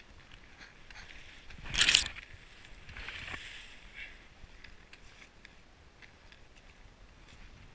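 Ski touring skis on climbing skins sliding and crunching uphill through snow, with faint, regular steps and pole plants. About two seconds in, a snow-laden spruce branch brushes past with a loud, brief rustle, and a softer swish of snow follows a second later.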